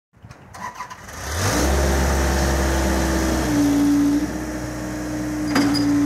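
Scat Trak 1300 HD skid steer loader's engine coming up to speed about a second in, then running steadily with a steady whine over its low drone. A single sharp clank near the end.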